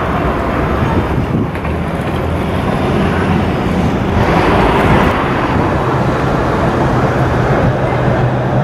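Low-floor city tram creeping up to its stop amid steady street noise; a low hum sets in about two-thirds of the way through.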